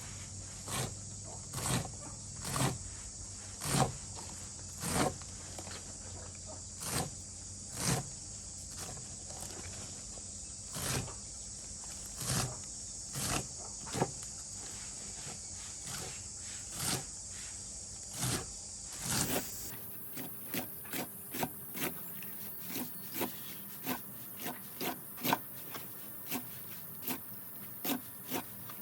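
Pigs chewing and chomping their feed, a run of short, sharp smacking crunches at irregular intervals. There is a steady high hiss under the first two-thirds; after an abrupt change in background the chomps come faster, about two a second.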